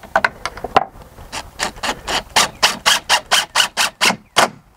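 Cordless DeWalt driver driving a screw into the bracket of a plastic railing's bottom rail, a few clicks and then a quick run of short pulses, about four a second.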